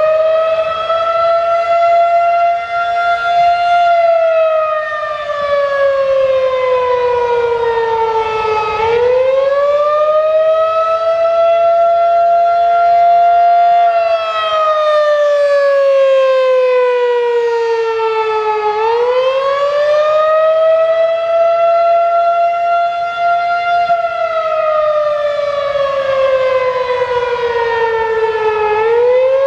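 Federal Signal 2001-SRN electromechanical rotating siren sounding the attack signal during a test: a loud wail that climbs, holds briefly at its peak, then slides slowly down before climbing again, about every ten seconds.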